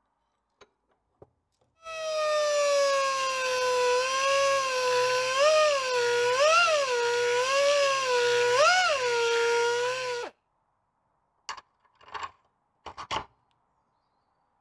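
Electric die grinder with a tapered bit, opening out the bolt hole in a steel leaf-spring shackle plate. It runs as a high, steady whine from about two seconds in, the pitch sagging and recovering several times as the bit bites, then cuts off suddenly. A few light metallic clicks follow near the end as a bolt is tried in the enlarged hole.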